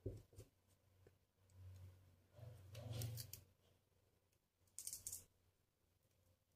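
Faint handling sounds from a beaded crystal tiara on copper wire being turned in the hands: a few light clicks at the start, a soft rustle and knock around the middle, and a short hissing rustle of beads near the end.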